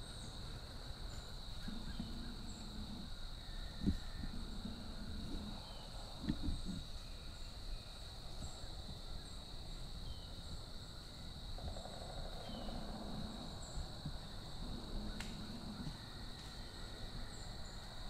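Quiet woodland ambience: a steady high-pitched whine, scattered faint short chirps, and a few soft rustles or thumps about four and six seconds in.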